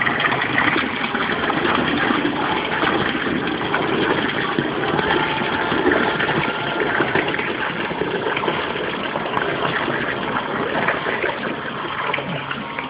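Water gushing steadily from two PVC aquarium overflow drain pipes into a plastic bucket, the overflows under test for how much water they flow.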